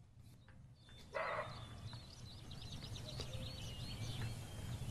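A deer gives one short bark that sounds like a dog, about a second in. Small birds chirp after it.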